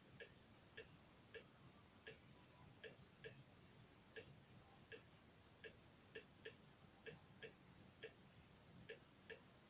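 Faint, short clicks at uneven spacing, one or two a second, from scrolling through a video menu on a screen.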